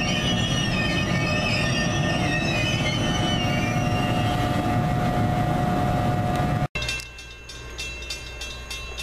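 NJ Transit ALP-46A electric locomotive and its passenger cars passing close by at speed: a loud steady rush with wavering high-pitched wheel squeal and a steady whine. The sound cuts off abruptly about seven seconds in, leaving quieter ambience with a faint regular ticking, about three a second.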